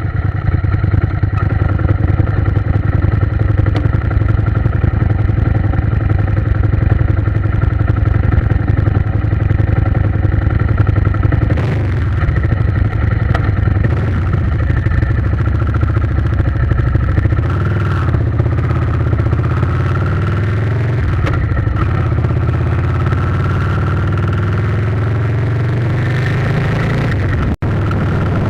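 Motorcycle engine running steadily while riding, its pitch slowly rising over the second half. The sound cuts out for a moment near the end.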